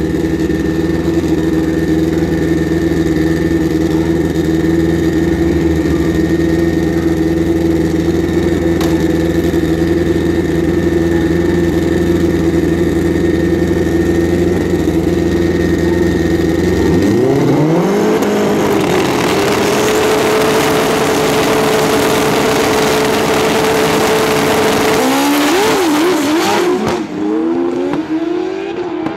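Two Pro Street drag-racing motorcycles idling steadily on the starting line, then launching about 17 seconds in: engine pitch climbs sharply and holds high at full throttle. Near the end the pitch dips and climbs again several times as the bikes shift up through the gears down the strip.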